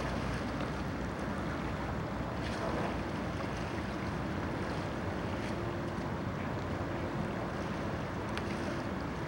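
Wind buffeting the microphone over a steady wash of waves on open water, with a few faint ticks.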